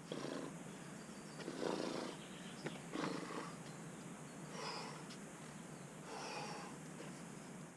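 A climber's hard, effortful breathing while moving on an overhanging boulder traverse: about five sharp exhalations, one every second and a half or so, with a couple of faint taps between them.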